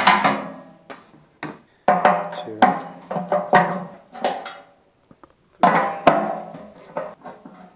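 Music: a string of struck, pitched notes, each starting sharply and ringing away, in an uneven rhythm with a short pause near the middle.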